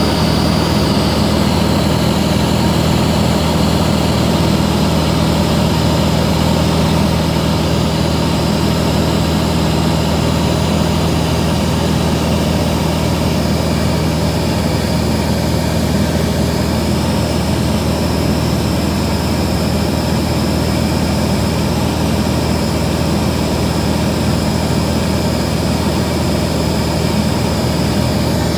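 A Van's RV-6 light aircraft's piston engine and propeller running steadily in flight, heard from inside the cockpit: a constant low hum with a faint high whine.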